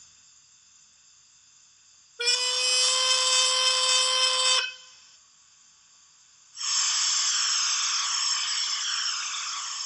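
Factory-fitted sound decoder in a Bachmann Caledonian 812 class OO gauge steam locomotive model standing still. About two seconds in it gives one long, steady whistle lasting about two and a half seconds. After a short gap comes a loud steam hiss that slowly fades.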